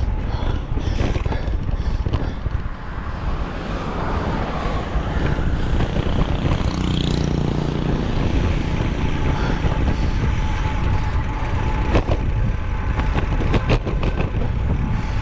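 Motor vehicle traffic running past, a steady low rumble, with a couple of sharp knocks near the end.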